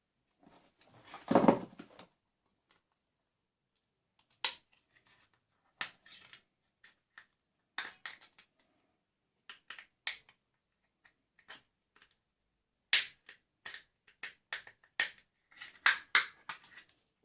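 Plastic and metal parts of a vacuum cleaner being pulled apart and handled during dismantling for scrap: a crunching scrape lasting about a second near the start, then scattered clicks and knocks, coming thickest near the end.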